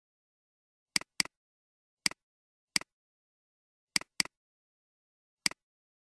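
Computer mouse clicking: seven short, sharp clicks over dead silence, twice in quick pairs like double-clicks.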